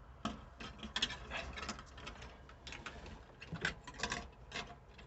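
Light, irregular clicks and scrapes of a stiff wire being poked and fished through a pop-rivet hole in the truck's body metal.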